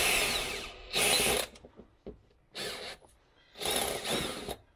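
Cordless drill running in about four short bursts, stopping and starting, as it bores a small pilot hole through the van floor.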